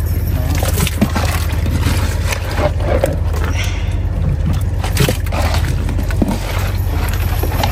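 Small boat engine running steadily with a low, evenly pulsing rumble, with a few scattered knocks and scrapes from handling gear in the boat.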